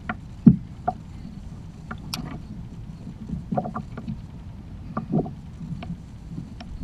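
Scattered knocks and taps on a plastic Hobie kayak as gear and the landing net are handled, the loudest about half a second in, over a low steady wash of water and wind.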